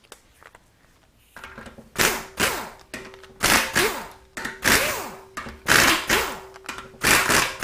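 Socket wrench turning out the 7/16-inch bolts that hold the low-reverse race in a Ford 4R100 automatic transmission case: a quick run of noisy metal strokes, about two a second, starting about a second and a half in.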